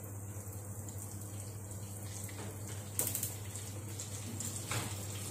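Tempering of curry leaves, dried red chilli and urad dal sizzling softly in hot oil in a small pan on a gas burner. A sharp click about three seconds in and a smaller one near the end come as the gas knob is turned.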